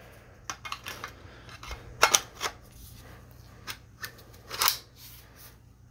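Stevens 320 12-gauge pump shotgun being assembled: the barrel and pump forend are worked back and forth against the receiver, giving a series of irregular metal clicks and knocks, the loudest about two seconds in. The barrel is not yet clearing and seating into the receiver.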